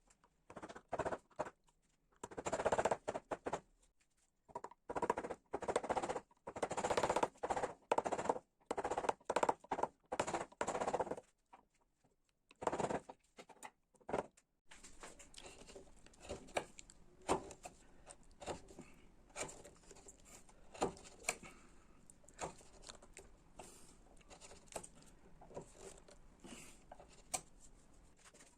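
Ash wood being worked by hand with carving tools. First comes a run of short, uneven scraping cutting strokes. From about fifteen seconds in, it turns to quieter, quick little ticks and scrapes.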